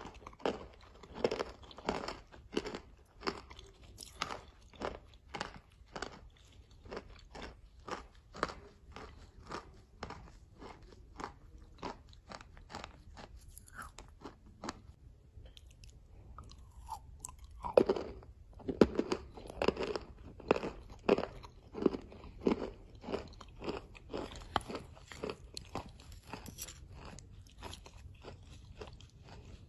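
Close-up chewing and crunching of chalk mixed into a clay paste, short crisp crunches about twice a second. About halfway through there is a brief pause, then louder crunching resumes and thins out toward the end.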